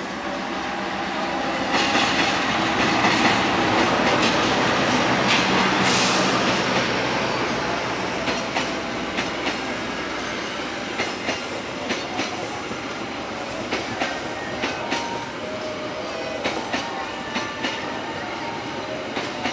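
A diesel locomotive hauling a passenger train passes close by. The sound swells to its loudest as the locomotive goes past, then the coaches roll by with a steady run of sharp clickety-clack from the wheels over the rail joints.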